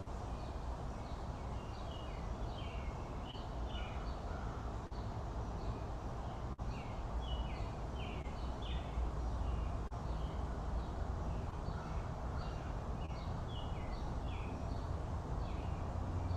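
Birds chirping: many short, falling chirps in quick, irregular runs, over a steady low rumble.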